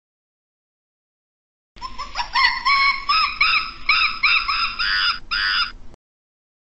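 A primate's loud calls: a rising note, then a rapid series of pitched, arching hoots at about two a second. They start abruptly about two seconds in and cut off sharply near the end.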